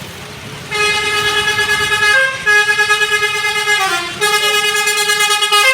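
Basuri 'telolet' multi-tone musical horn on a bus playing a tune. Three long blasts of held notes, each shifting pitch at its end, begin about a second in.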